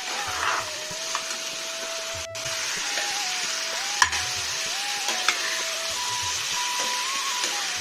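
Chicken pieces and potato chunks sizzling in hot oil in a nonstick wok, stirred with a metal spatula. The spatula knocks sharply against the pan twice, about four and five seconds in.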